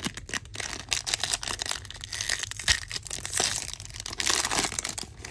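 Foil wrapper of a baseball card pack being torn open and crinkled by hand: a dense run of crackling and rustling.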